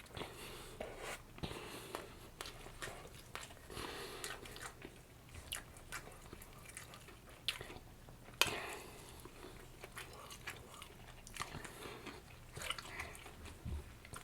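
Close-up mouth sounds of biting and chewing a sauced fried chicken sandwich: irregular wet clicks and crunches, with one sharper crunch about eight seconds in.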